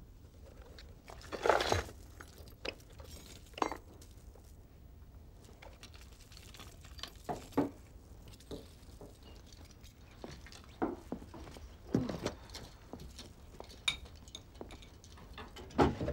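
Small objects being handled by hand: scattered light clinks, knocks and rustles, with a louder rustle about a second and a half in and another near the end.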